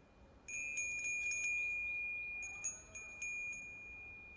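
Korean metal wind bell (pungyeong) with a fish-shaped wind sail, its clapper striking in a quick flurry about half a second in and a few more times around the middle. Between strikes one high tone keeps ringing and slowly dies away.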